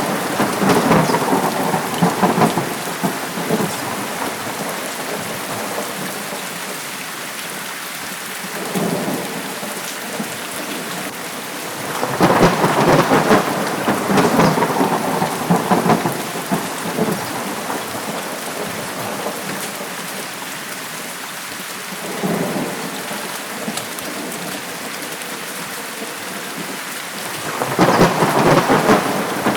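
Steady heavy rain with repeated rolls of thunder. A rumble fades in the first few seconds, a louder, longer roll comes about twelve seconds in, quieter rumbles come between, and another loud roll starts near the end.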